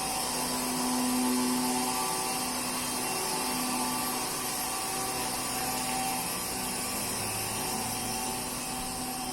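A CNC stone-cutting machine running: a steady hiss with several motor tones that rise and fall slightly.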